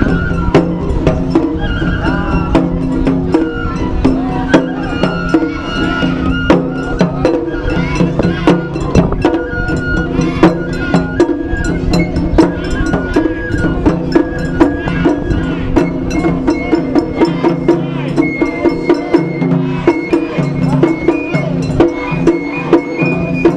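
Japanese festival parade music: a high melody of held, stepping notes over fast, steady percussion strokes and drumming.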